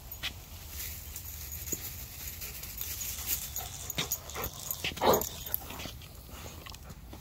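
A dog right by the microphone, making one short vocal sound about five seconds in, the loudest moment. Light clicks and rustles come and go around it.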